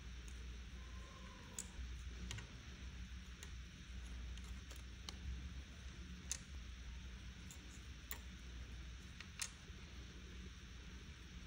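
Scattered light clicks and taps of press-on nail tips, fingernails and small plastic nail tools being handled, about a dozen at irregular intervals, over a steady low hum.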